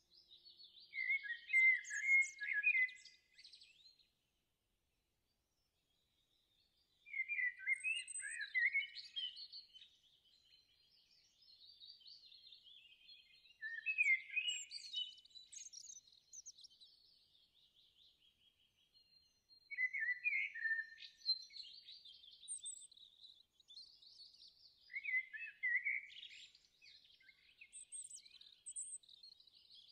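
Birds chirping and singing in bursts of quick chirps and trills, falling silent for a few seconds near the start.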